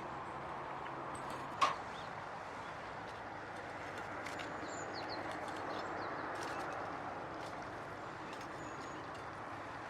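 Small birds giving short high chirps now and then over a steady rushing background, with one sharp click about one and a half seconds in.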